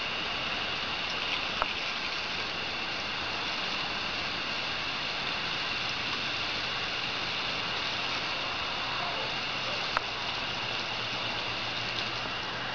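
Steady hiss of a thin stream of water from a garden hose pattering onto wet grass, with two sharp clicks, one about two seconds in and one about ten seconds in.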